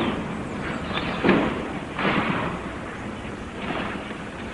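Battle sound effects: rumbling explosions and crackling gunfire, with a few louder blasts about a second apart.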